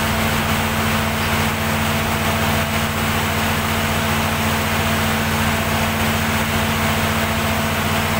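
Perkins diesel generator set running at a steady speed, an even engine note that does not change.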